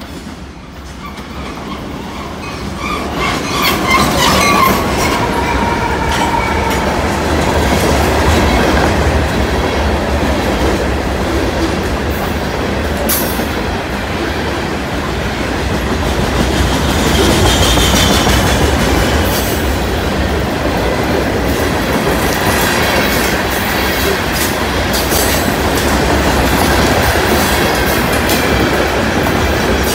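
CSX freight train passing close by, led by an EMD SD40-2 and a GE ES44AC-H diesel locomotive. The sound builds over the first four seconds as the locomotives go by, then the freight cars' wheels keep up a steady rumble and clatter on the rails, with a brief metallic squeal a little past halfway.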